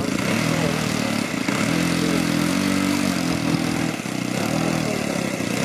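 Engine of a large radio-control model biplane running on the ground, its pitch rising about one and a half seconds in as the throttle opens, easing back with a brief dip near four seconds, then picking up again.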